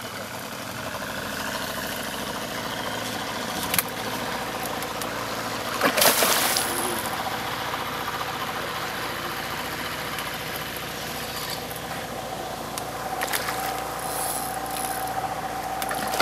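Hooked sazan (wild common carp) splashing at the surface as it is played on a rod. There is a loud splash about six seconds in and more splashing near the end, over a steady low hum.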